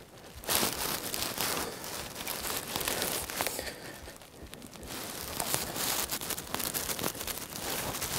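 Close rustling and crinkling, full of small clicks, in two long stretches: it starts suddenly about half a second in, eases around the middle, and builds again toward the end.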